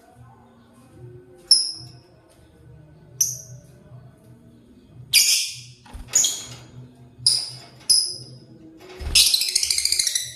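Lovebirds calling: a string of short, sharp, high-pitched chirps, with a louder harsh screech about five seconds in and a raspy chattering burst near the end.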